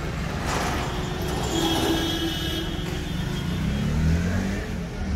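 Road traffic at a junction, a steady rumble of vehicle engines. A car horn sounds in one held note of about a second, just before the middle. Near the end an engine note rises as a vehicle pulls away.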